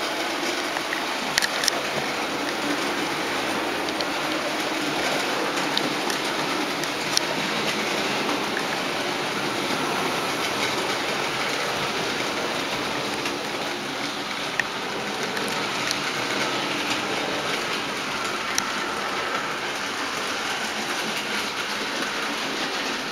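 Model railway trains running on the track: a steady whirring, rattling noise from the motors and wheels, with a few scattered sharp clicks as the wheels cross rail joints.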